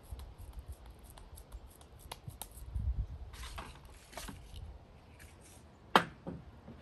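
Hands working raw ground meat into a burger patty: small soft handling sounds and clicks, with one sharp knock about six seconds in as the patty goes onto the plate or a hand meets the board.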